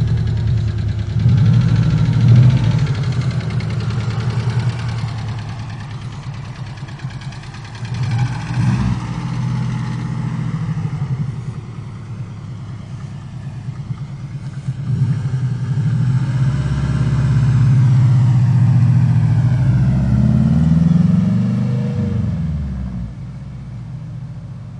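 Subaru GL flat-four engine running with a lifter tick, the ticking the owner calls the tick of death. It is revved up and down several times, with a longer rise and fall in pitch near the end.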